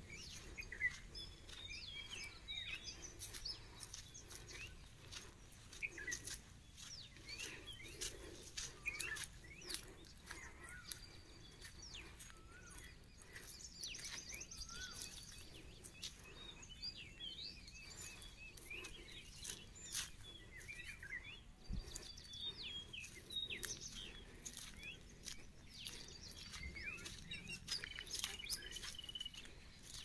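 Several wild birds calling, a running mix of short chirps and whistled notes, with many sharp clicks scattered throughout.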